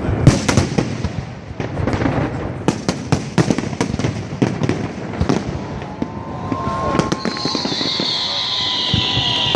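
Fireworks display: a rapid run of sharp bangs and crackles, joined about seven seconds in by a loud hiss with thin whistling tones that slowly falls in pitch.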